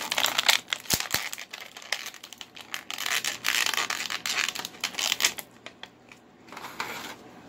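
Thin clear plastic blister packaging crinkling and crackling as an action figure is pried out of it, with a few small clicks. The handling is continuous for the first five seconds or so, then comes again briefly near the end.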